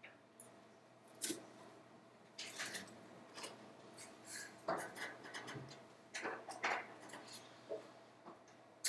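Laptop keys and trackpad being worked: irregular clicks and short rubbing noises, with a sharper click about a second in.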